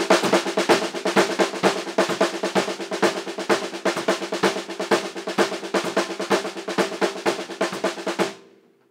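Acoustic drum kit played: a steady, dense run of accented sixteenth notes on the ringing snare, with bass drum underneath. It stops suddenly about eight seconds in.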